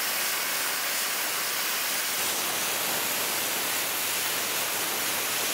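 Vevor plasma cutter cutting through roughly 5/16-inch steel angle at about 44 amps with the air turned up: a steady, loud hiss of the air-driven arc.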